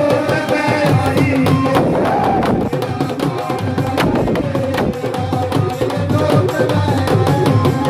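Live Indian devotional music: a dholak drum beating a quick, even rhythm under a harmonium playing sustained notes.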